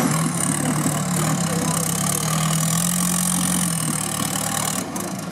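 Off-road trial buggy's engine running at steady revs as it crawls up a rock step, easing off about four seconds in.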